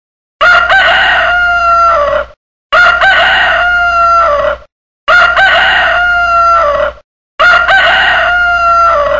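Rooster crowing four times, about two seconds per crow and evenly spaced. The four crows are near-identical in shape, each with a rising start and a long held, slightly falling end.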